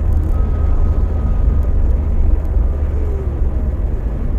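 Car driving along, heard from inside the cabin: a steady low engine and road rumble with tyre noise.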